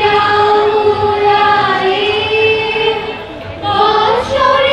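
A group of voices singing a song together in long, held notes, with a brief break for breath about three seconds in before the singing picks up again.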